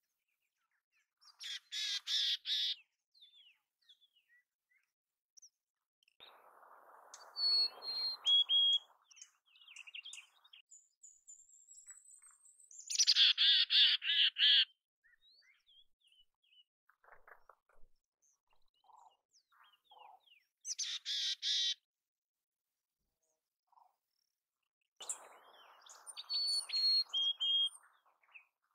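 Mountain chickadee calling: three bursts of rapid, buzzy dee notes several seconds apart, and twice a few clear whistled notes stepping down in pitch.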